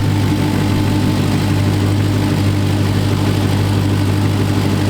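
Dodge Challenger Hellcat's supercharged V8 idling steadily with a deep, even drone.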